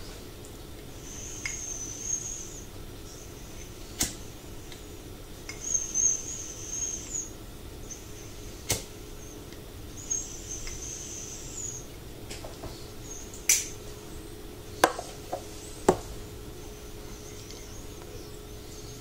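Tobacco pipe being lit with a lighter: three hissing stretches of about a second and a half each as the flame is drawn into the bowl, with several sharp clicks in between.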